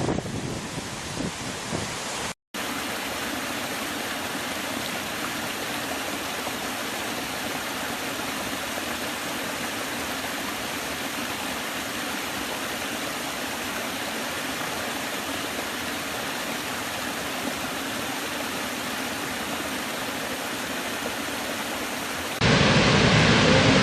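Waterfall rushing steadily, an even wash of falling water. The sound drops out briefly about two and a half seconds in, and jumps louder near the end.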